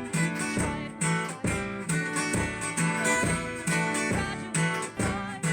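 Acoustic guitar strummed in a steady rhythm, about two strokes a second, playing an instrumental passage between sung lines of a song.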